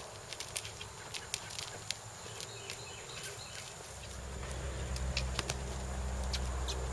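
Hoofbeats of a yearling Quarter Horse moving loose on sand footing: a quick, irregular run of light strikes. About four seconds in, a low steady drone comes up and stays, louder than the hooves.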